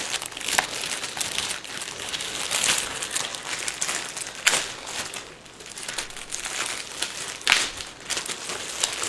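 Plastic packaging crinkling and rustling, with many sharp crackles, as a computer keyboard is pulled out of its wrapping.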